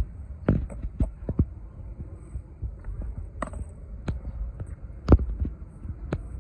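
Penny board's small plastic wheels rolling on pavement: a steady low rumble broken by irregular sharp clacks and knocks, the loudest about five seconds in.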